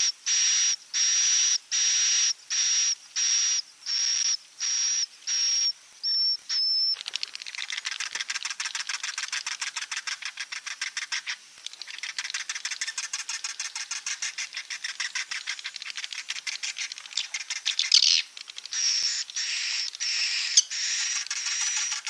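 Swiftlet roosting call ('suara walet inap'), the twittering used to lure swiftlets to roost. It starts as a string of sharp high chirps, about two a second, each carrying a thin whistle. From about seven seconds in it turns into a fast, rattling twitter of rapid clicks.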